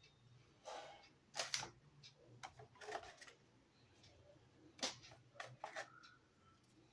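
Handling noise from unboxing a smartphone: a scatter of sharp clicks, taps and brief rustles as the box and its contents are opened and moved about, with pauses between them.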